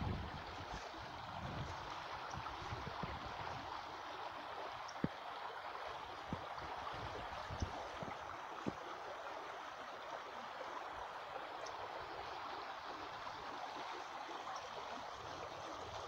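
A small stream flowing with a steady babble of running water. A few soft knocks sound in the middle of it.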